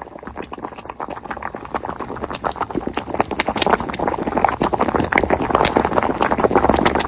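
Vehicle tyres running over the yellow line on the road: a rapid, irregular rattle of clicks and knocks that grows louder.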